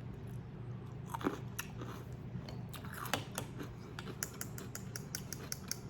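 A person chewing a crunchy pickled carrot, with many short wet crunches and mouth clicks.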